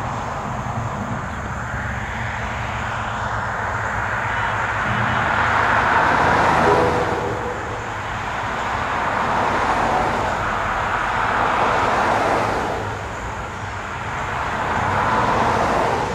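Road traffic passing close by: cars and a pickup going by one after another, each pass-by a rush of tyre and engine noise that swells and fades, about four in all.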